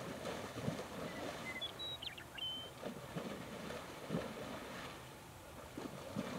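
Water sloshing and splashing in irregular bursts as wild horses wade and drink in a shallow pond, with a few short high bird chirps about two seconds in.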